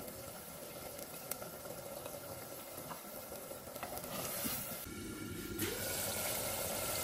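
Minced beef frying in oil in a clay pot, a steady soft sizzle that grows somewhat louder about five and a half seconds in.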